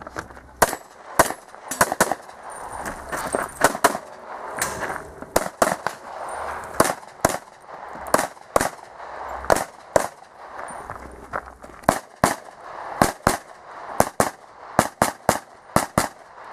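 Handgun shots fired rapidly through a practical-shooting course of fire: dozens of sharp reports, many in quick pairs, with short pauses between strings.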